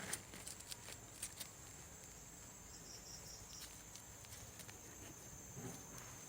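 Faint, steady high-pitched insect chirring, with a few soft clicks and a quick run of about five high pips near the middle.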